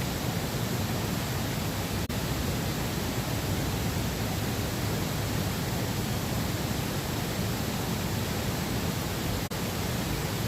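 Steady rushing noise with no distinct events, dipping briefly twice, about two seconds in and near the end.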